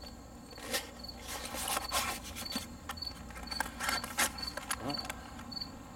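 Cardboard box rustling and clicking as its flap is opened and a grappling hook is pulled out, with an insect chirping in the background about twice a second.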